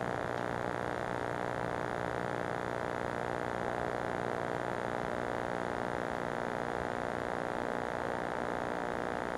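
Steady hiss and electrical hum with no change: the noise floor of a wireless security camera's audio feed taped on VHS.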